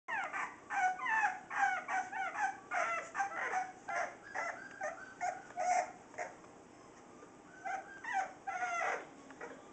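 Olde English Bulldogge puppies, about four and a half weeks old, giving many short high-pitched yips and whines as they play-wrestle. The calls come thick and fast, pause for a moment about two-thirds of the way through, then a few more follow.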